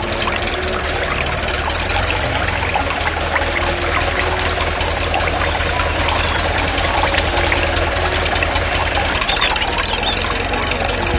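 A small engine running steadily, with a scatter of small clicks and rattles through it.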